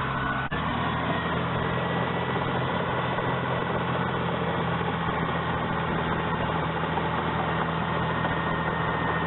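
Bulldozer's diesel engine idling with a steady low hum.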